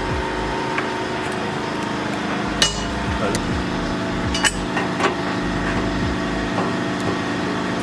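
A few sharp metallic clinks and knocks of tools and metal parts, the loudest about two and a half seconds in, over a steady mechanical hum.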